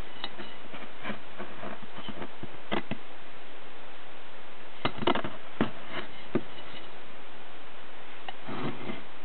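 Steady hiss with scattered light clicks and knocks from handling: one about three seconds in and a quick cluster around the middle.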